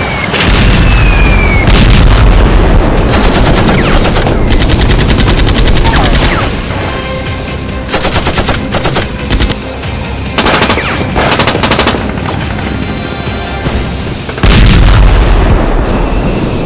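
Battle soundtrack of rapid machine-gun bursts and gunfire, in several runs, with a short falling whistle at the start and a heavy explosion near the end.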